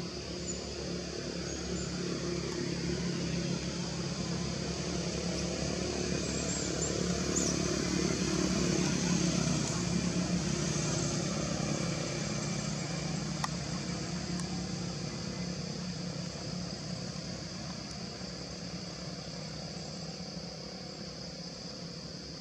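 A motor vehicle engine running, growing louder to its peak about nine seconds in and then slowly fading, over a steady high hiss.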